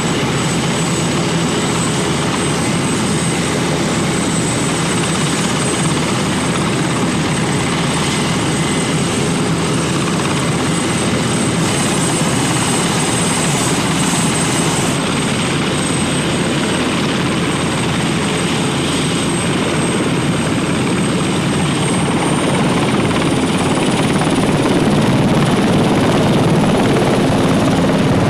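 Turbine helicopter running with rotors turning: a steady rotor and engine noise with a high turbine whine. About three-quarters of the way in the whine rises in pitch and the sound grows louder as power comes up for lift-off.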